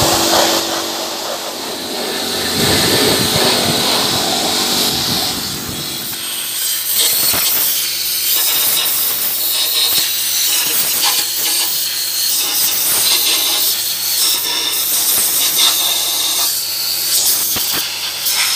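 Pressure washer spraying a cylinder head: a steady hiss of water with the pump's hum under it, which stops about six seconds in. After that come irregular clicks and scrapes of a hand tool working on the head.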